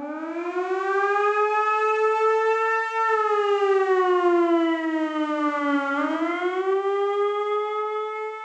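Civil defense warning siren wailing: it winds up from a low pitch over about three seconds, slides down for about three seconds, then winds up again and holds a steady high pitch.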